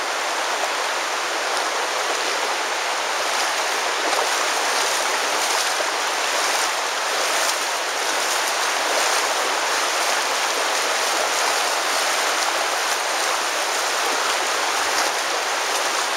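The Virgin River flowing through the canyon, a steady rush of water.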